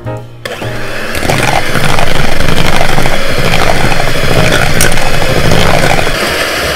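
Electric hand mixer switching on about half a second in, its beaters running steadily as they beat a soft creamy mixture with powdered sugar, a little quieter near the end.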